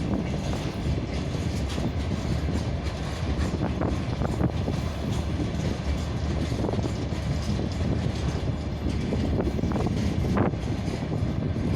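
Freight train rolling slowly past, a steady rumble of its wheels on the rails with a few faint clicks.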